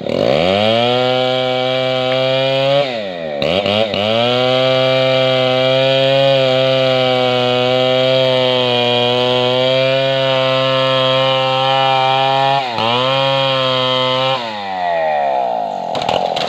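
Chainsaw running at full throttle, cutting into the base of a sonokeling (Indonesian rosewood) trunk to fell it. The engine pitch dips and recovers briefly about three seconds in and again near thirteen seconds, then drops about fourteen seconds in as the throttle eases off.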